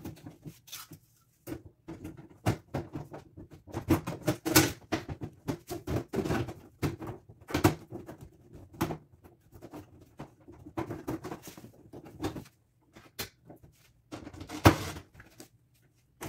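Irregular clicks, taps and scrapes of thin sheet-metal cover plates being slid and pressed into place on a microwave's housing, with one sharper metallic knock near the end.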